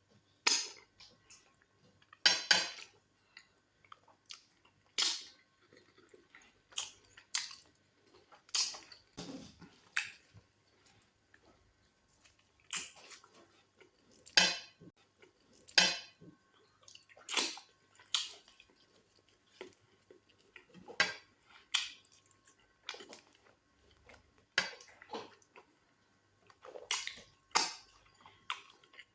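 Close-up eating sounds of fufu and goat meat in black soup being chewed: short, wet smacks and squishes that come irregularly, about one a second.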